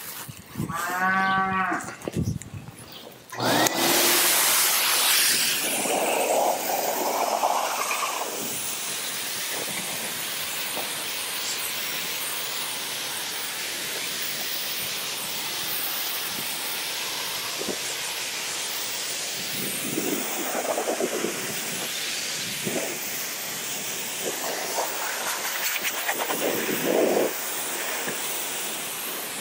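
A calf moos once, then a livestock blower starts about three seconds in and runs with a steady rushing hiss, swelling now and then as the nozzle is worked over the calf's hair.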